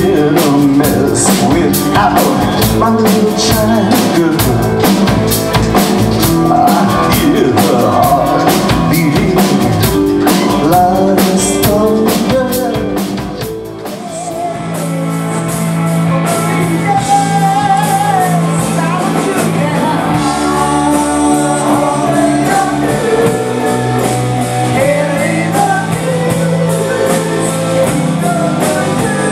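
Glam rock band playing live: a male singer over drums and guitar. About halfway through, the drums stop and the music changes to a slower passage of held chords with singing over it.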